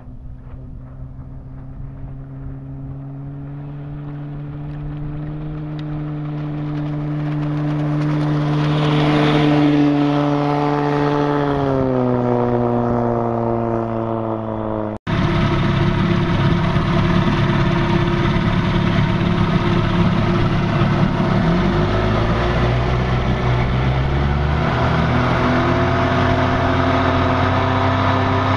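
A vintage Johnson two-stroke outboard motor running at speed, growing louder as it approaches and dropping in pitch as it passes. After a sudden break about halfway through, it is heard much closer and louder, rougher, with water noise.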